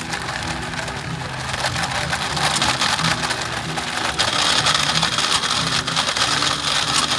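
Pedal-powered blender built onto an old exercise bike, its blade churning and crushing fruit in a glass jar as the rider pedals. The gritty whirring gets louder and brighter about four seconds in.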